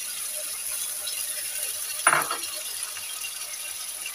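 Sliced onions and ginger-garlic paste frying in hot oil in a wok, with a steady faint sizzle and one short clink of a utensil about two seconds in.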